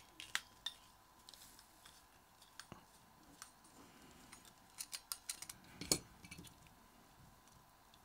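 Faint metal clicks and scrapes as a condenser microphone's circuit board is slid into its metal grille body and the body parts are fitted together: scattered small ticks, with a cluster of clicks about five to six seconds in.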